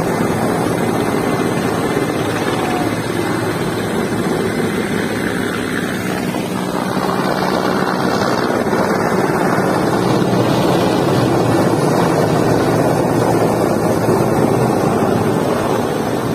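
Military transport helicopter flying low overhead, its rotor and engines making a steady, dense noise, with wind buffeting the microphone.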